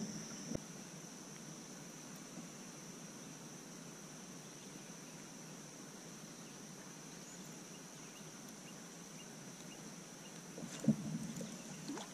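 Steady, faint, high-pitched insect chirring over a quiet background, with a few light knocks near the end.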